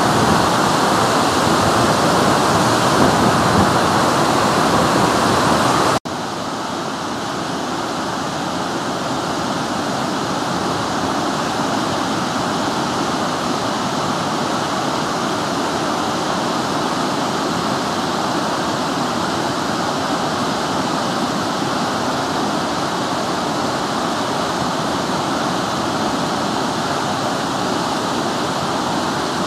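Fukuroda Falls, a large tiered waterfall, rushing in a steady, loud roar of falling water. About six seconds in the sound cuts off abruptly and picks straight up again slightly quieter and less bright, as the view changes to the falls from below.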